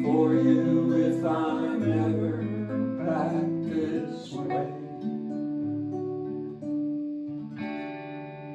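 Guitar strumming the closing chords of a folk song, then letting them ring and fade, with a fresh chord struck near the end.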